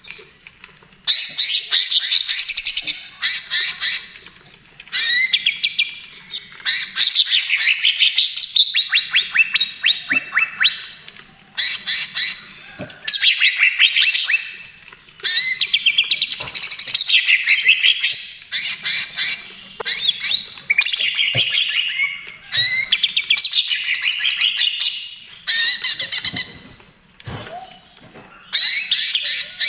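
Leafbird (cucak ijo) singing loudly in repeated bouts of rapid, varied chirps and trills, each bout lasting one to four seconds with short pauses between. This is the full, prolific song that keepers call 'gacor'.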